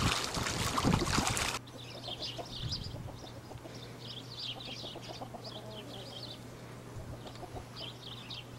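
Water splashing as a duck bathes in a small plastic pool, cut off suddenly about a second and a half in. Then quieter barnyard sounds: chickens clucking, with many short high chirps.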